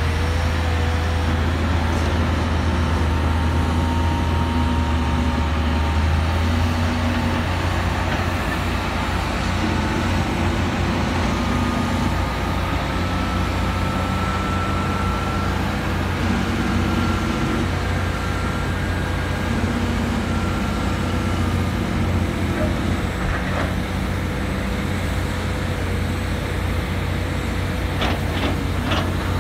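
Heavy diesel engines of hydraulic excavators and rigid dump trucks running: a steady low drone with engine notes that shift and come and go. A few sharp knocks near the end.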